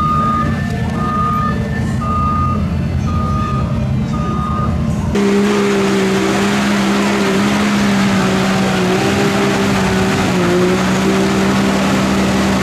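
A backup alarm beeping about once a second over a low engine drone. After a sudden change about five seconds in, a side-by-side UTV's engine is held at high, steady revs as it drives through deep mud, with a wash of noise from the tyres and mud.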